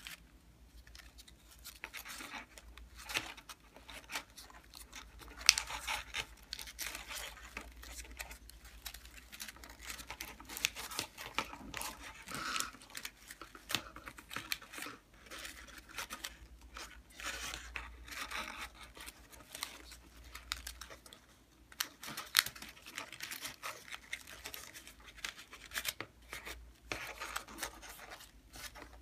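Folded paper units of a modular origami lotus rustling and crinkling as they are handled and pushed together, in irregular bursts, with a couple of sharper paper crackles.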